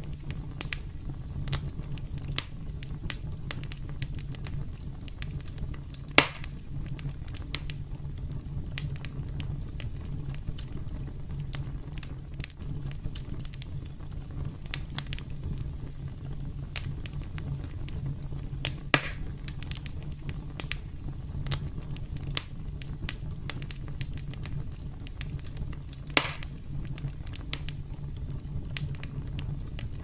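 Campfire crackling: a steady low rumble of burning wood with frequent small crackles and three louder pops, the first about six seconds in and the last near the end.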